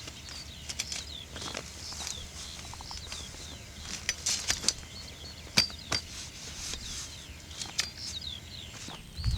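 Small birds chirping over and over in short curving notes, with scattered sharp clicks and taps throughout, the loudest about four and a half and five and a half seconds in.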